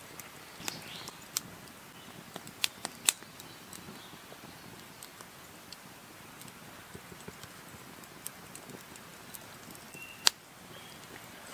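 Open wood campfire crackling, with scattered sharp pops over a steady hiss: a cluster of pops in the first few seconds and one loud pop near the end.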